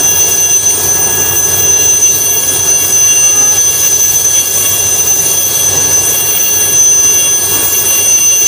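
Helicopter turbine engine whining steadily, with several high steady tones over a constant rushing noise, as the helicopter sits on the ground.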